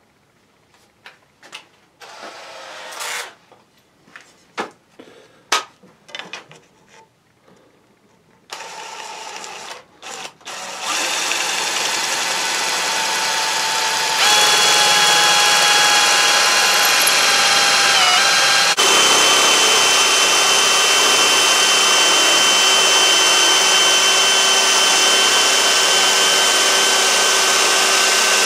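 Knocks and clicks of setting up, then an electric drill runs steadily from about eleven seconds in, spinning a tapered oak ramrod blank through a steel rounding jig that scrapes it round. Its whine dips in pitch briefly under load and recovers.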